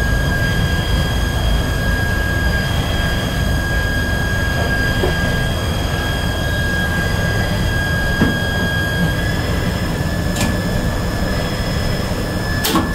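Elevator machinery running under its frequency-inverter drive: a steady low rumble with a high whine, the whine stepping up slightly about nine seconds in, and a couple of sharp clicks.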